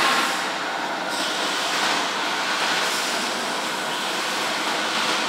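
Vacuum membrane press machine running with a steady, even rushing noise and no clear rhythm.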